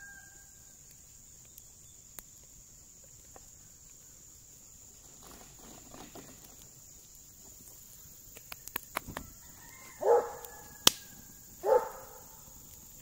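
Steady high chirring of crickets, with a few sharp crackles from the wood fire. Near the end come two short, loud animal calls about a second and a half apart.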